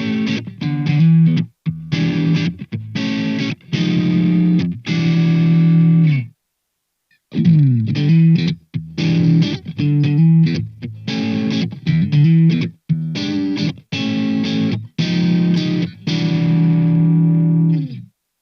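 Tokai TST-50 Stratocaster-style electric guitar played with overdrive: distorted chords in short stabs and held strums. It breaks off about six seconds in, comes back with a slide into more chords, and stops just before the end.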